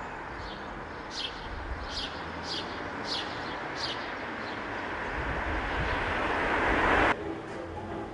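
Street ambience with a passing vehicle approaching: a steady rushing noise swells louder, then cuts off abruptly about seven seconds in. High short chirps repeat a little faster than once a second in the first half.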